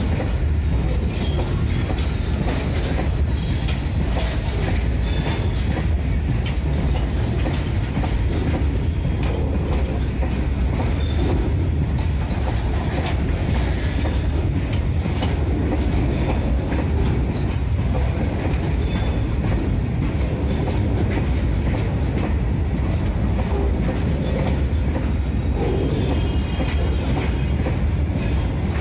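Goods train of loaded open box wagons rolling past close by: a steady heavy rumble with the clickety-clack of wheels over rail joints, and now and then a brief high wheel squeal.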